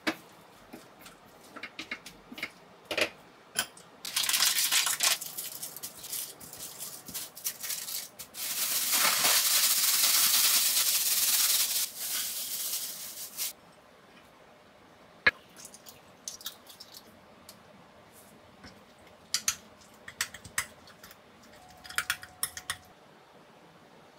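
Kitchen cooking sounds: a silicone spatula stirring and clicking against a stir-fry in a wok, then a loud, steady hiss that lasts about five seconds, followed by scattered light clicks and taps of utensils.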